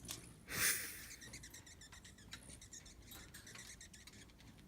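Hummingbirds squabbling: a brief rush of noise about half a second in, then faint, scattered high chips and ticks.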